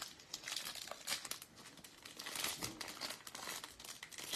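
Foil wrapper of a Topps Holiday baseball card pack crinkling and tearing as it is pulled open by hand, an irregular run of crackles.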